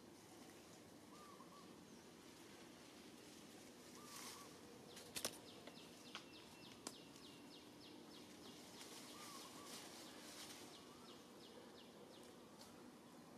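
Faint natural background: a bird giving short, curved call notes every few seconds, and a fast, even run of faint ticks, about four a second, through the middle. A few sharp clicks about five to seven seconds in are the loudest sounds.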